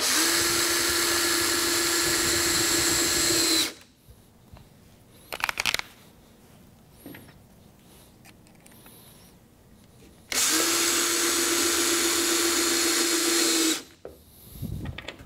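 Cordless drill driving wood screws into countersunk pilot holes: two steady runs of the motor, each about three and a half seconds, with a few brief clicks between them as the next screw is set.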